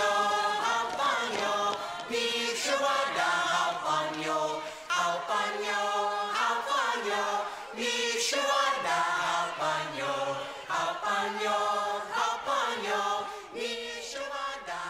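A crowd of people singing a song together in chorus.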